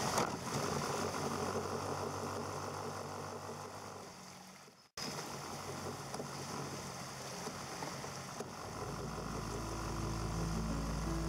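Boat motor running steadily as the boat moves along, a low mechanical hum. It cuts out for an instant about five seconds in and then resumes. Quiet music with low held notes fades in near the end.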